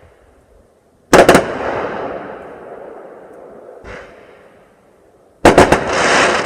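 Fireworks going off: a quick cluster of sharp bangs about a second in that fades slowly, echoing, then a smaller pop near four seconds, and another cluster of bangs near the end followed by a brief hiss.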